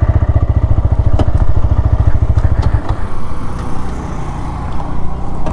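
TVS Raider 125's single-cylinder engine idling at a standstill with a rapid, even exhaust beat, which becomes quieter about three seconds in.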